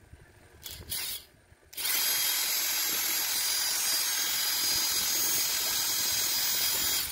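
A 12 V 775 brushed DC motor, test-run on its power leads after repair. It gives a brief blip about a second in, then spins up and runs steadily at high speed with a high whine and brush hiss for about five seconds before it cuts off suddenly.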